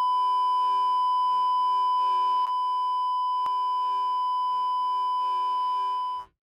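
Steady, high test-tone beep of the kind that goes with TV colour bars, with a fainter lower tone under it, held at one pitch and cutting off suddenly near the end.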